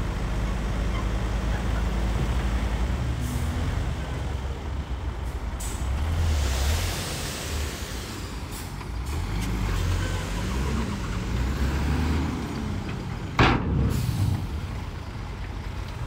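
Heavy diesel construction machinery working, a bulldozer or dump truck, its engine note rising and falling under changing load. A brief sharp burst about thirteen and a half seconds in is the loudest moment.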